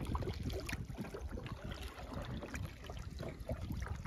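Wind rumbling on the microphone, with small waves lapping and splashing against the hull of a canoe on open water.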